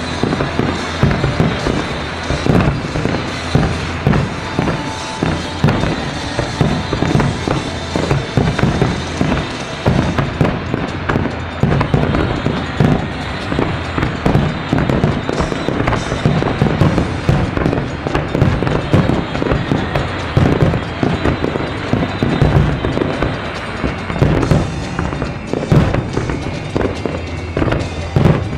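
A Japanese starmine fireworks barrage: many shells launching and bursting in quick, overlapping succession, a dense, unbroken run of booms and bangs.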